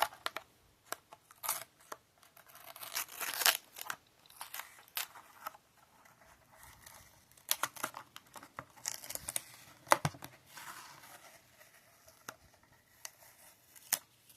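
Plastic blister packaging and cardboard of a Hot Wheels card being torn open and crinkled by hand, in irregular crackling bursts with sharp clicks.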